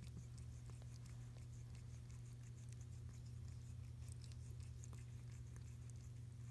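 A mother cat's faint, irregular licking and chewing sounds, small wet clicks, over a steady low hum.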